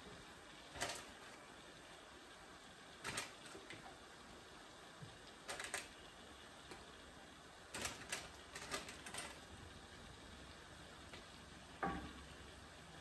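Metal kitchen tongs clicking and clinking against a skillet and a baking tray as cooked chicken pieces are lifted into the pan: scattered single clicks, with a quick run of them about eight seconds in.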